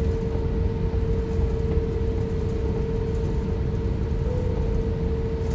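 Airbus A350-1000 airliner cabin noise: a steady low rumble with a constant mid-pitched hum over it.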